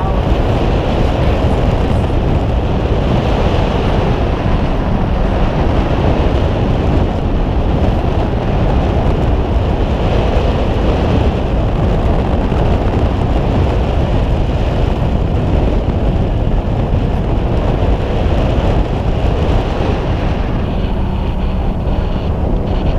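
Steady wind rushing over the microphone on the open deck of a whale-watching boat, with the boat's engine and the sea running beneath it.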